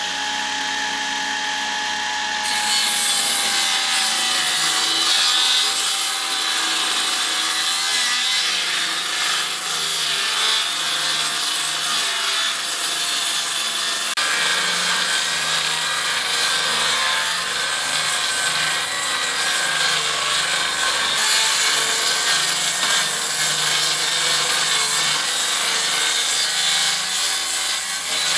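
Electric saw ripping a wooden wall board lengthwise to trim it narrower. The motor spins up at the start, its pitch sags a little as the blade bites, and then it cuts steadily for nearly half a minute before stopping at the very end.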